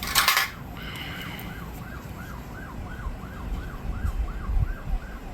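A siren-like electronic warble, a rising-and-falling whoop repeating about four times a second. A short loud hissing burst comes right at the start, with some low rumble later on.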